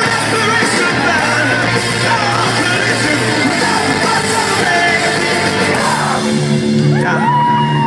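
Live rock band playing loud, with singing and yells from the crowd. The dense wall of sound thins near the end into steadier held notes.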